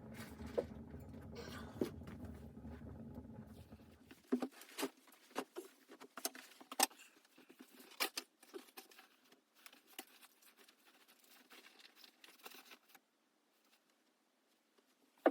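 A steady low rumble that cuts off about four seconds in, followed by irregular light taps and clicks that die away a couple of seconds before one last sharp click.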